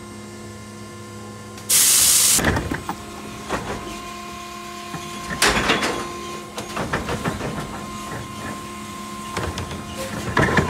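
Electric Mack LR New Way Sidewinder side-loading garbage truck at work: a steady whine from its electric drive and hydraulics, a loud hiss of air about two seconds in, then clusters of bangs and rattles a few seconds apart.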